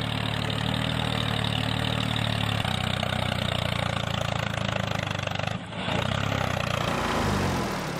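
Tractor engine running steadily at low revs, with a short dip about five and a half seconds in.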